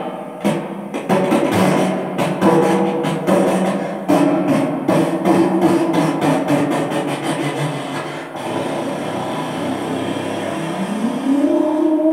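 Hip hop beat with sharp drum hits and a man rapping into a handheld microphone. About eight seconds in the drums drop out, leaving a held tone that rises in pitch near the end.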